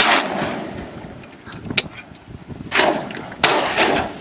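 Shotgun shots at passing ducks: a loud blast right at the start, a shorter crack about halfway, then two more blasts close together near the end, each trailing off.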